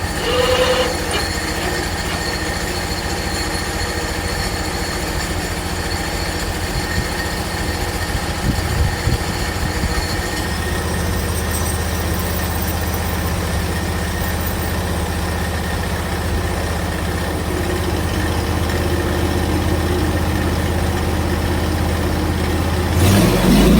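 Hud-son HFE30 portable bandsaw mill running, its gas engine driving the blade through a black cherry log on the first flat-side cut. The engine note steps about ten seconds in and rises near the end.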